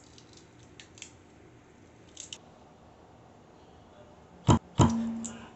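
A few light clicks, then two sharp knocks of hand tools about a third of a second apart near the end, the second ringing briefly with a steady tone.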